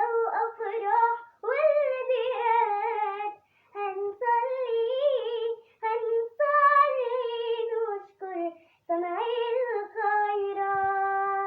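A young girl singing an Arabic hymn unaccompanied, in short sung phrases with vibrato and brief pauses between them, ending on a long held note.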